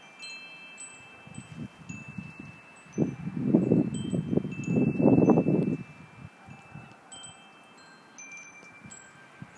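Chimes ringing with long, clear, overlapping tones at several pitches. Midway, about three seconds of loud, irregular low rumbling noise rise over them.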